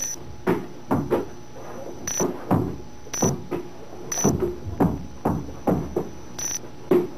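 Balls bouncing on a hard floor as they are bounce-passed from player to player: irregular sharp thuds, two or three a second, each with a short hollow ring.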